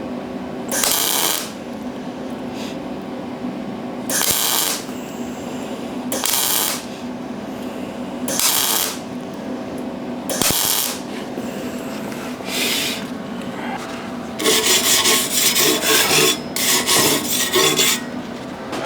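MIG welder arc crackling in short bursts about every two seconds, stitching weld onto quarter-inch steel plate to build up a joint, then one longer run of crackling near the end. A steady machine hum runs underneath.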